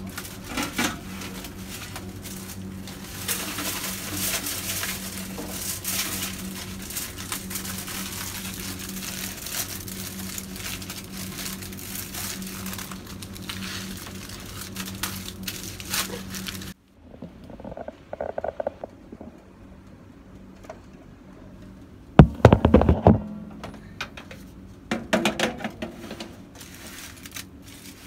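Aluminium foil crinkling and rustling as it is folded and pressed around a piece of pork, a steady low hum beneath it. After a break about two-thirds in, a few loud knocks and rattles as the foil-wrapped pork goes back into a countertop oven.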